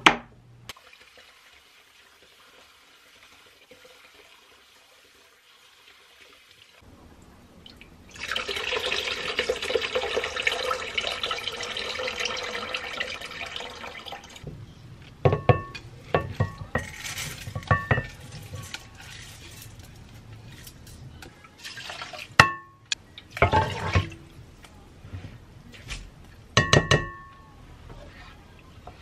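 Kitchen tap running into a bowl of brown rice for about six seconds as the rice is rinsed, then the rinse water poured off. This is followed by a string of clinks and knocks of the bowl against the sink and a metal pot, some ringing briefly.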